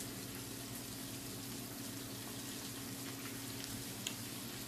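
Steady low sizzling and bubbling of food cooking over a gas flame, from fried rice in a wok and a pot of hot oil, over a faint steady hum.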